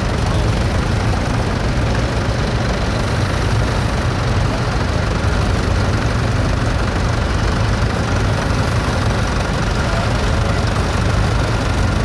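Vintage tractor engine running steadily while the tractor pulls a plough, a constant low rumble.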